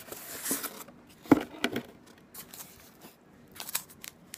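Cardboard packaging being handled: a rustling scrape as a white inner box is slid out of a purple cardboard box, a sharp knock just over a second in, then a few light taps and clicks.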